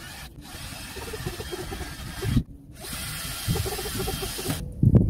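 Power drill running in two bursts of about two seconds each, with a short pause between, working on a sheet-metal panel that is going over a van window opening. A short low knock follows near the end.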